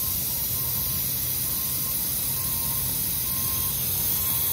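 Steady hiss of nitrogen flowing from the regulator through the charging hose into a package unit's refrigerant circuit, pressurizing it to test a freshly brazed condenser-header leak repair.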